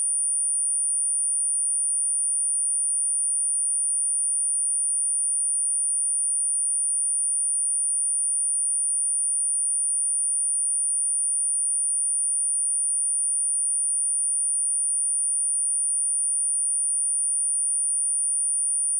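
A steady, unbroken 9377 Hz sine-wave test tone: one pure, high-pitched electronic note.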